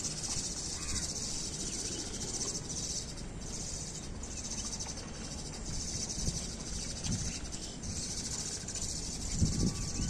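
Steady high-pitched chorus of insects, over low rumbling noise, with a short dull thump near the end.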